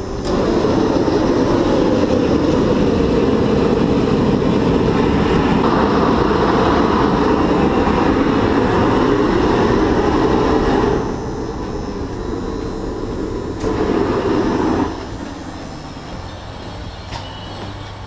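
Loud, steady rushing roar of the air blast driving a cupola furnace, turned up to make the furnace hotter. It drops about eleven seconds in, swells again briefly, then settles lower.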